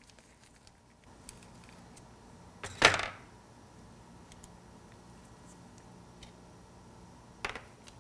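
Quiet handling of a SRAM X01 trigger shifter being taken apart with an Allen wrench as its lever is removed: faint small clicks of metal tools and parts, with one brief louder sound about three seconds in and a softer one near the end.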